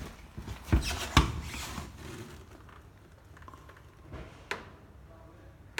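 Two sharp knocks about half a second apart, then a single lighter click near the end.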